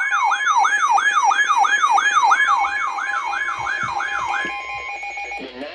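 Emergency alert attention tone: steady electronic tones with a falling whoop repeating about three times a second over them. It cuts off about five seconds in and heralds a spoken severe thunderstorm warning.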